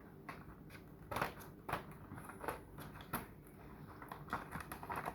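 Scissors snipping through a toy box's packaging, with scattered sharp clicks and rustles of the package being handled.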